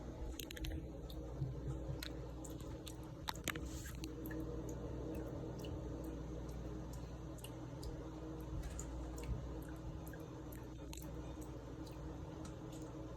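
Thin stream of tap water running, with small wet splashes and clicks where a cat paws at it, a few sharper ones in the first few seconds, over a steady low hum.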